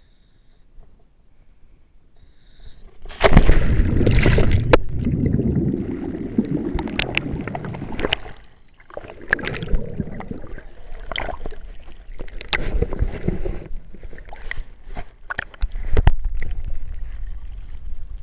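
A scuba diver dropping from a boat into the sea about three seconds in: a sudden loud splash, then gurgling and rushing of air bubbles underwater, with many sharp clicks and knocks.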